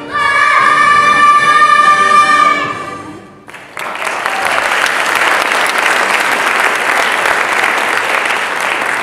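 A chorus of young girls holds a loud final sung note for nearly three seconds, then it dies away and audience applause starts about three and a half seconds in and continues.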